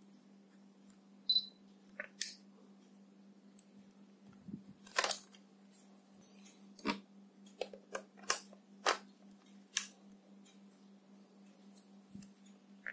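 Clicks and knocks of a camera lens and a Viltrox EF-EOS M2 speed booster adapter being taken off and fitted to a Canon EOS M camera's lens mount: a series of separate sharp clicks, with a faint steady hum underneath.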